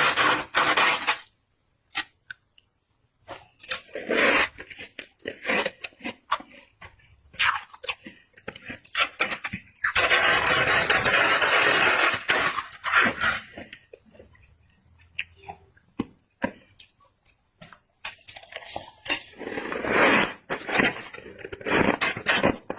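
Squeaky freezer frost being scraped and eaten close to the microphone: irregular crunching bites and chewing, with a longer continuous stretch of scraping or crunching about ten seconds in.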